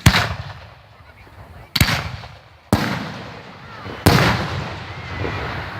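Aerial fireworks shells bursting: four loud booms over a few seconds, the last two closest together, each followed by a long rolling echo.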